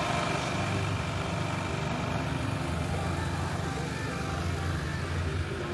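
A motor engine running steadily, a low even hum with no change in pace.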